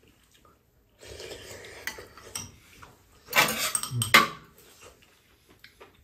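Metal spoons and chopsticks clinking and scraping against metal bowls on a tray during a meal. The loudest clatter comes a little past halfway, followed by a sharp clink.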